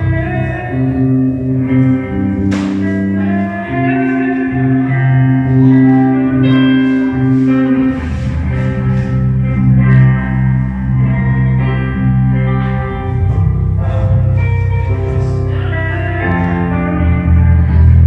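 Live band playing a slow piece: guitar and keyboard chords held and changing every second or two over a low bass-guitar line, with a few light cymbal-like strokes.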